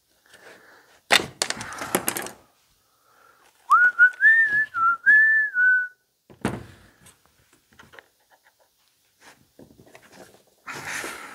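A person whistling a short tune of a few notes for about two seconds, midway through. Before and after it come sharp clicks and clatter of hand tools on a chainsaw being taken apart.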